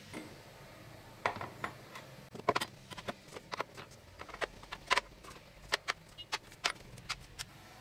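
Rusty metal bicycle-bell parts clinking and clattering as they are handled and set into a plastic tub: an irregular run of sharp clicks and taps starting about a second in.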